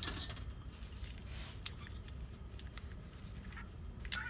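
A few light, sharp metallic clicks and rattles from 4L60E transmission hard parts being handled, over a steady low hum.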